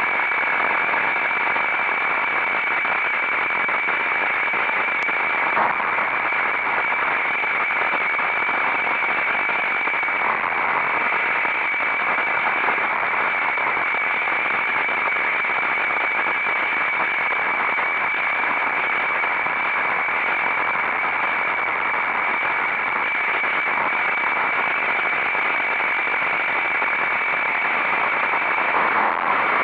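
Steady rush of wind and road noise from a motorcycle under way, picked up by an onboard camera microphone, with a constant high whine.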